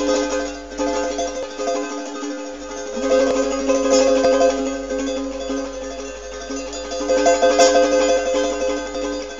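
A small guitar-like plucked string instrument played solo, strummed quickly in a continuous run of notes.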